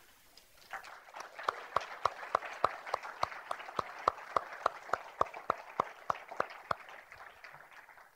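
Congregation applauding, with one pair of hands clapping in a steady beat of about three to four claps a second above the rest; the applause fades away near the end.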